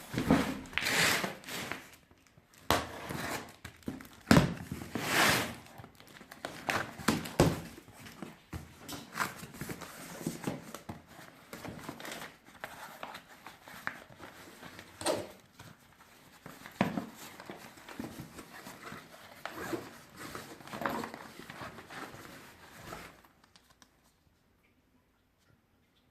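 Packaging being handled during an unboxing: irregular crinkling, rustling and tearing with occasional knocks. It stops about 23 seconds in.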